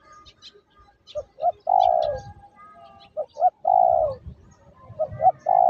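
Spotted dove cooing: three phrases, each of two short notes followed by a long, falling coo. Faint, high chirps sound between the phrases.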